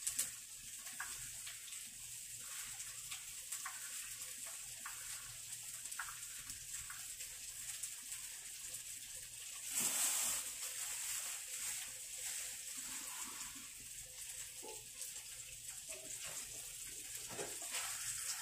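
Steady hiss of a lit gas stove burner, with a louder rush of noise lasting under a second about ten seconds in.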